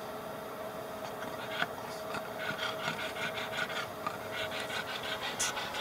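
Pug breathing rapidly and raspily in quick, evenly repeated breaths, the noisy breathing typical of a flat-faced breed, over a faint steady hum.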